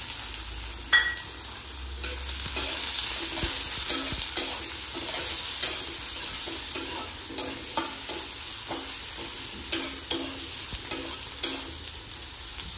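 Sliced onions sizzling in hot oil in a kadhai, with a steel spatula scraping and tapping against the pan every half second or so as they are stirred and fried.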